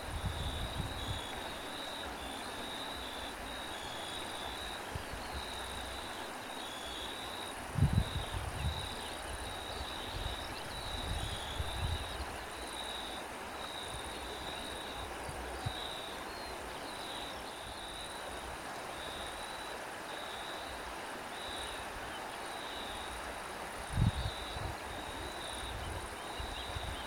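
Crickets chirping in a steady run of regular pulses over a constant hiss. Wind buffets the microphone in low rumbling gusts about 8 seconds in, around 11 seconds and near 24 seconds.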